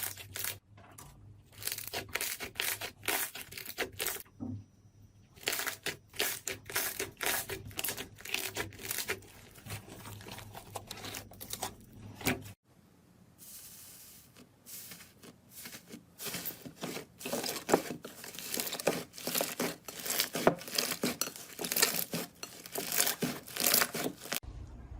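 Slime being squeezed and pressed by hand, giving dense crackling and popping clicks, with a short quieter spell about halfway through.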